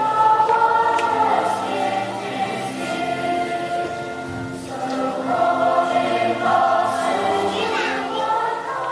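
A choir of school students singing a Christmas song together, moving through long held notes.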